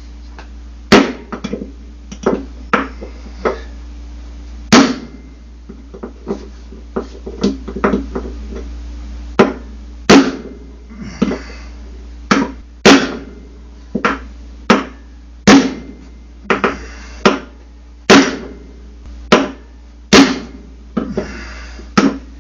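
A new bearing being tapped into a Samsung washer's bearing housing with a hammer: sharp metal strikes around the bearing's edge, roughly one a second at uneven spacing, some much harder than others, each with a short ring. A low steady hum runs underneath.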